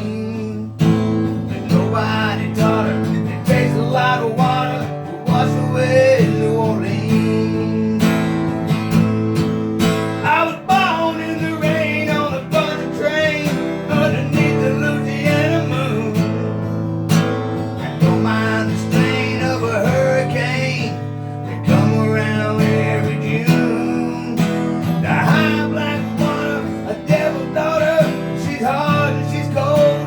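Song with acoustic guitar strumming steady chords under a winding melodic lead line, with no lyrics.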